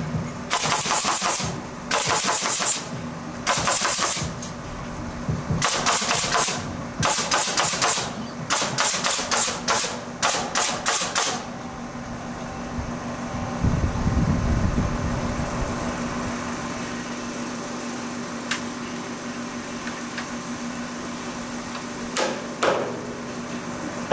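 Pneumatic nail gun firing rapid strings of shots into the timber for about the first eleven seconds, then stopping. A steady low hum runs underneath throughout.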